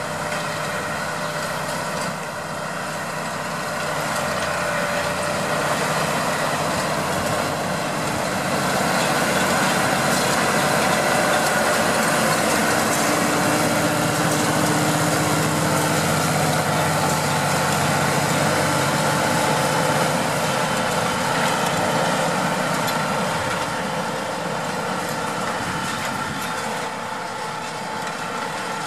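Deutz-Fahr 6155 tractor working a field, its engine running steadily under load while it drives a power harrow through the soil. The noise grows louder through the middle and eases off near the end.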